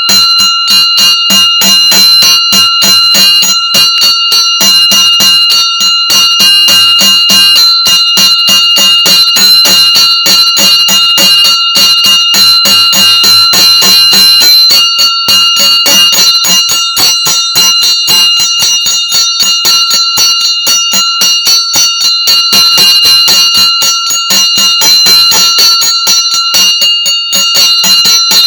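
Puja bell (ghanta) rung quickly and without a break, its clapper striking several times a second over a steady, sustained ringing tone.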